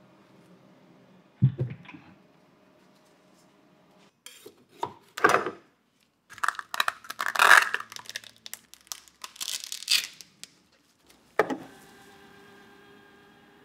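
Workshop handling sounds around a resin 3D printer: a thump about a second and a half in as the printer's cover is lifted, then a run of clattering and scraping as the print is handled on its build plate. Near the end a click, then the steady hum of a UV curing station's turntable running.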